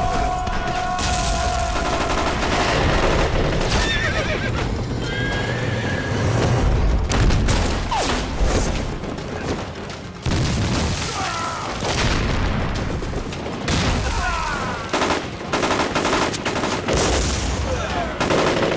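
Film battle soundtrack: horses whinnying several times over scattered gunfire and explosions, with a dense low rumble and music underneath.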